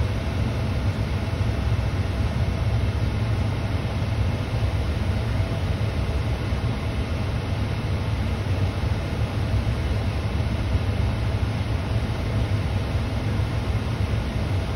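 Steady low rumble inside a parked vehicle's cabin with its engine idling.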